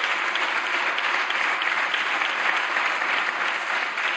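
Steady applause from many people clapping their hands.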